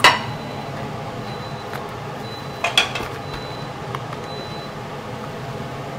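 Oil sizzling steadily as two spiral-cut potatoes deep-fry in a pan. Metal tongs clink sharply against the pan twice, at the start and about three seconds in.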